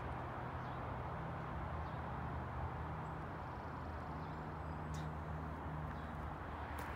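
Steady outdoor background noise with a low hum, and a few faint clicks about five seconds in and again near the end.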